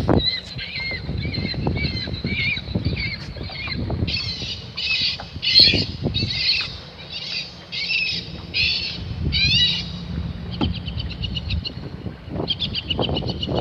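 Amplified recordings of predator-bird calls blaring from a bird-deterrent loudspeaker system, played to scare gulls away. Harsh calls repeat about twice a second, then give way to faster chattering call series near the end, with wind rumbling on the microphone.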